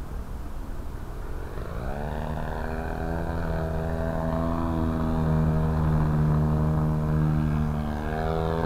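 Engine of a 40% scale Sbach aerobatic RC airplane in flight. After a low rumble for about two seconds, the pitch rises and then holds as a steady drone, dipping slightly and climbing again near the end.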